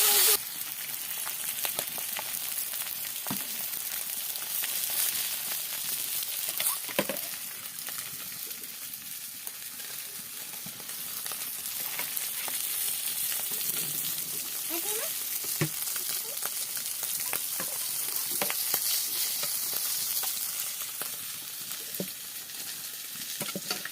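Food frying in hot oil in a kadai: a steady sizzle, with scattered sharp clicks of a spatula or turner against the pan as it is stirred.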